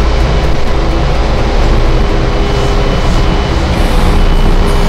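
Loud, steady drone of an oil tanker's engine-room machinery: a deep rumble with several steady hums running through it, without a break.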